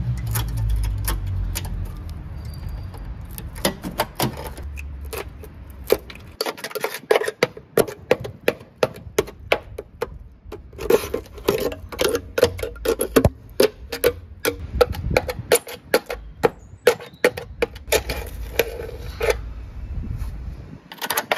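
A pointed metal tool prodding and tapping rusted-through steel on a car's wheel arch and sill, a rapid, irregular run of sharp clicks and crackles as the rotten metal gives way, starting a few seconds in.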